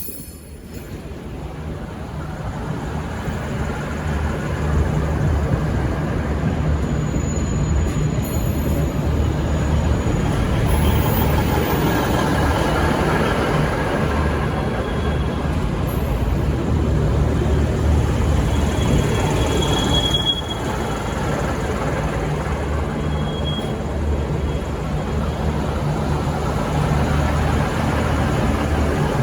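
V/Line VLocity diesel multiple unit running on the track with a steady low engine drone and wheel and rail rumble, growing louder over the first few seconds and then holding steady.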